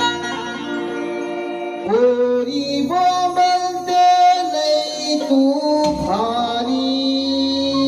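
Live naman folk music: held melody notes over a low drone, sliding to new pitches about two seconds in and again near six seconds, with drum strokes in the middle.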